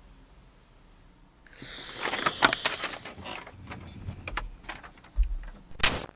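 Sheets of paper being handled and rustled, with scattered clicks, a low thump about five seconds in and a sharp click near the end.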